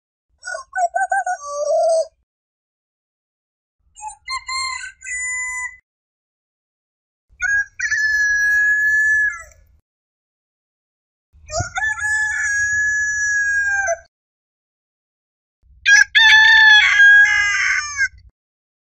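Roosters crowing: five separate cock-a-doodle-doo crows, each about two seconds long, with a couple of seconds of silence between them.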